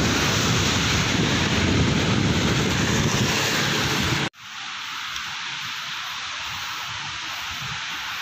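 Wind rushing over a handheld phone's microphone while riding a bicycle on a wet road: a dense, steady noise. About four seconds in it cuts off sharply and gives way to a quieter, thinner steady hiss.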